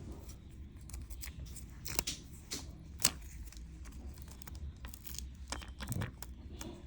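Faint crinkling and small ticks of sticky battery adhesive tape being peeled and handled by fingers, with two sharper clicks about two and three seconds in, over a low steady hum.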